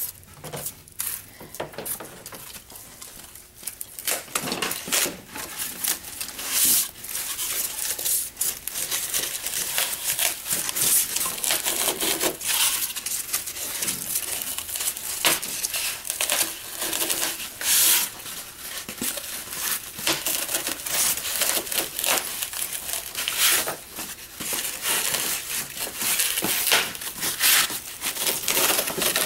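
Box cutter blade sawing through a sheet of expanded polystyrene foam, a continuous run of irregular scratchy, squeaky, crunching strokes.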